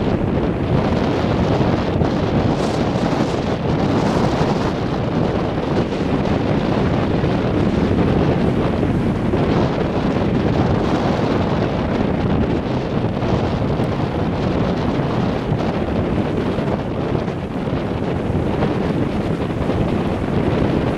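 Strong gale-force wind blasting the microphone, with wind-driven waves breaking on a lakeshore; a loud, steady rush of noise with no pauses.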